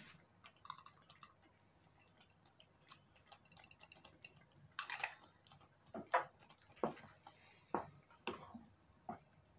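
Faint, irregular clicks and taps from a pan of thick squash stew being stirred with a wooden spoon. They are sparse at first and come every half second or so in the second half.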